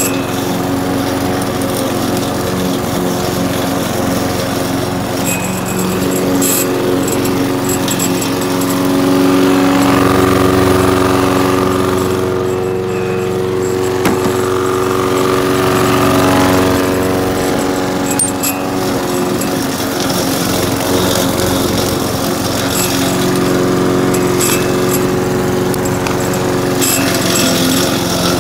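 Brute walk-behind rotary lawn mower's small four-stroke engine running steadily while cutting tall grass, with a louder, deeper stretch around the middle as the engine takes the load.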